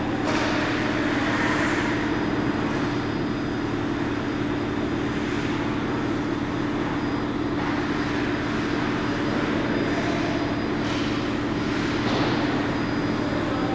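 Indoor ice rink: a steady low mechanical hum, with hockey skate blades scraping and hissing across the ice several times, the sharpest scrapes near the end.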